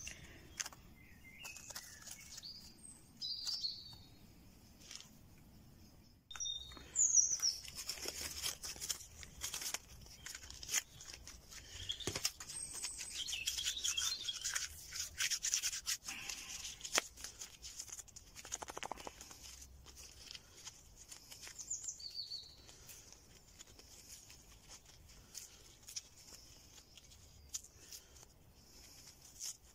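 Birds chirping and singing in woodland, with close rubbing, rustling and small clicks from hands working and handling material near the microphone; the rubbing is strongest through the middle stretch.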